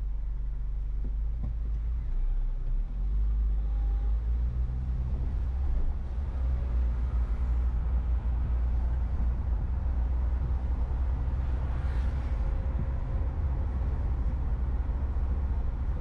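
A car being driven: steady low engine and road rumble, a little louder from about three seconds in, with a brief swell of higher hiss about twelve seconds in.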